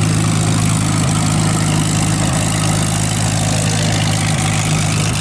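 A large engine running steadily at a constant speed, a loud, unchanging deep hum.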